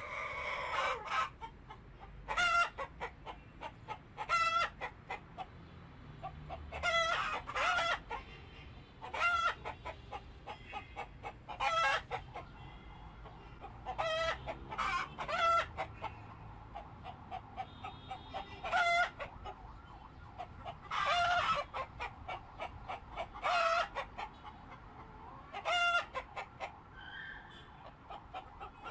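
Chickens clucking: short, pitched calls in quick clusters, repeating every second or two.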